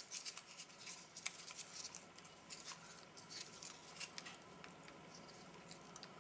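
Faint crinkling and clicking of food packaging being handled as MRE cheese spread is squeezed out of its pouch and dabbed onto wheat snack bread. The clicks are dense at first and die down after about four seconds.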